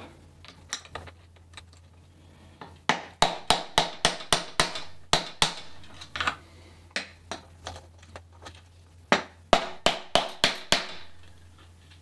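Repeated sharp hammer taps on the partly unscrewed bottom bolts of a RockShox Bluto fork's lower legs, in irregular runs of several strikes, shocking the bolts loose so the lower legs can come off.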